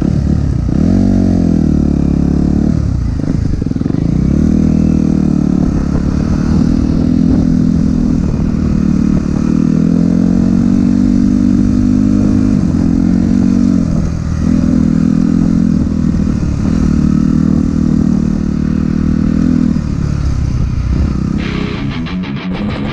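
Suzuki RM-Z250 four-stroke single-cylinder dirt bike engine running under way, its revs rising, dropping and levelling off again and again. Rock music comes in near the end.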